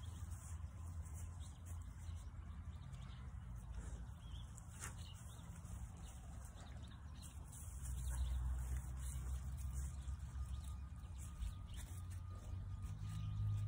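Faint bird chirps over a low rumble that grows louder about eight seconds in.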